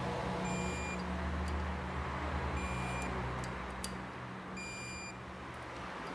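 Short electronic beep repeating about every two seconds, three times, over a low steady hum that dies away about four seconds in, with a few faint clicks.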